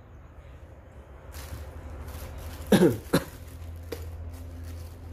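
Two short throat sounds from a person, close together about three seconds in, over a low steady hum.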